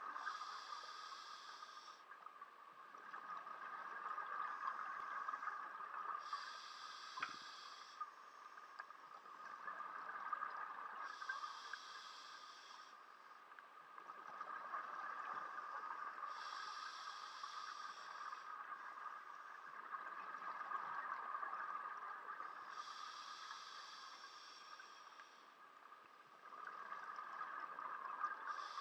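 Scuba diver breathing through a regulator underwater: a hiss on each inhalation and a bubbling rush on each exhalation, about one breath every five seconds.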